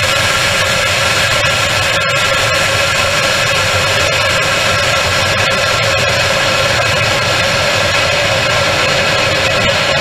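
Steady, loud rushing noise with faint steady whining tones and a few light clicks, picked up by a rocket's onboard camera as air streams past the airframe during its descent after apogee.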